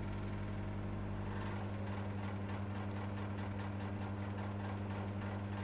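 Steady low electrical hum with a strong low drone and a second tone above it. From about a second and a half in, a faint rapid ticking joins it, several ticks a second.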